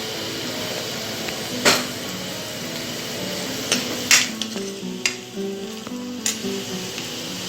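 A spoon clinking and scraping against a cooking pot as food is stirred: about six sharp clinks at uneven intervals, the loudest in the first two seconds and about four seconds in, over soft background music.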